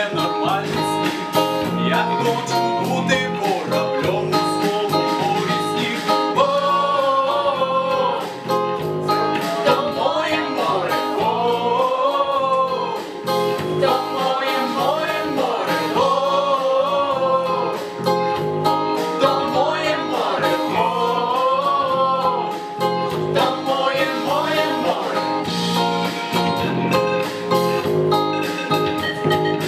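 Live band music: strummed acoustic guitar with a steady rhythm and a singing voice carrying a melody over it.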